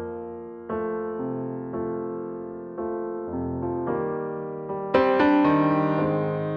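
Background music: slow solo piano, notes and chords struck and left to ring out, with a louder, brighter chord about five seconds in.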